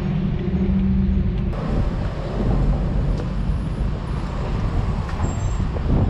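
Wind buffeting the microphone over street traffic noise, with a steady motor-vehicle engine hum that stops about a second and a half in.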